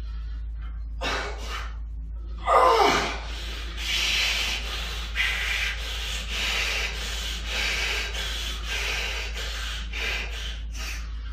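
A man breathing hard and forcefully from the strain of a heavy cable pull-down. A loud groan falls in pitch about two and a half seconds in, then comes a run of noisy exhalations about once a second. A steady low hum runs underneath.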